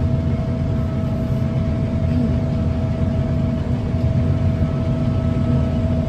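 John Deere X9 combine running, heard from inside its cab: a steady low drone with a thin steady whine above it.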